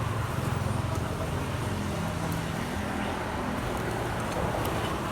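Steady road traffic noise: a low engine rumble from nearby vehicles with a constant hiss of passing traffic.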